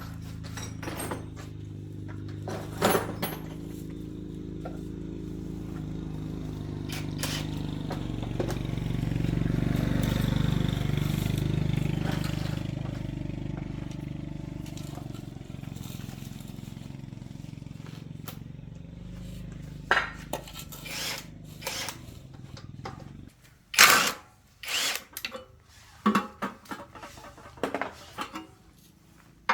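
A 750 W electric motor running with a steady hum that starts suddenly, swells and fades, and stops about 23 seconds in. After it stops come several sharp knocks and clicks.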